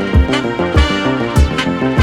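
Electronic music with a kick drum beat several times a second, a stepping bass line and crisp high percussion.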